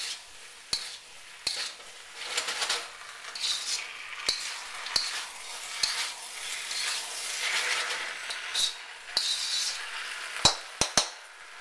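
Beef and broccoli stir-frying in a wok. A metal spatula scrapes and tosses the food in repeated strokes about once a second over a steady sizzle, with a few sharp clanks against the wok near the end.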